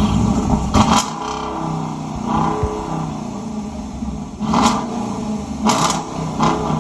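Dodge Durango R/T's 5.7-litre Hemi V8 running through a muffler-deleted exhaust, with stock resonators and tips left in place, revved in short blips about four times over a steady idle.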